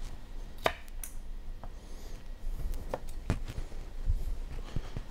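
Kitchen knife knocking on a wooden cutting board while celery stalks are trimmed: about five or six sharp knocks, unevenly spaced.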